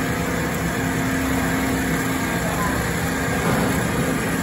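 Horizontal metal-cutting band saw running, its blade sawing through a metal tube under coolant: a steady, even machine hum.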